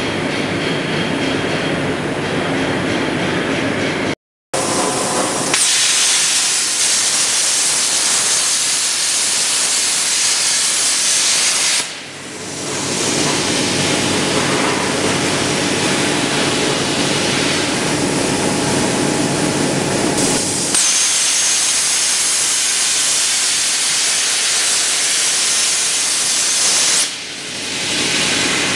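CNC plasma cutter's torch cutting steel: a loud, steady hiss of the plasma arc, dipping briefly about twelve seconds in and again near the end. Before it, a few seconds of lower machine running noise cut off by a short dropout.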